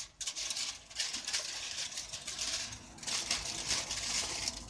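Aluminium foil crinkling and crackling in uneven bursts as it is folded and pressed by hand around a plate.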